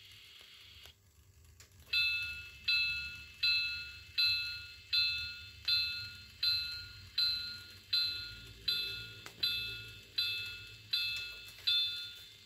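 Bell ringing in a steady rhythm, about fourteen strokes at roughly one and a half a second, each stroke struck sharply and dying away: the locomotive bell sound of the ESU LokSound decoder in a Märklin BR 85 model steam locomotive.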